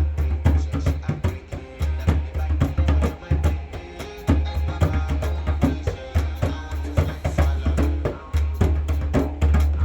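Afrobeats song with a deep, pulsing bass line and busy drum and percussion hits, several strokes a second.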